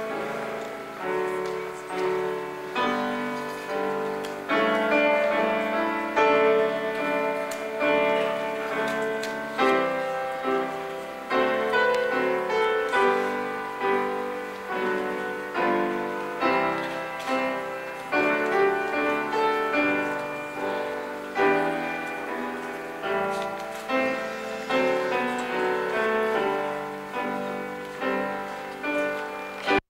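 Piano playing slow music, chords struck at an even pace and left to ring.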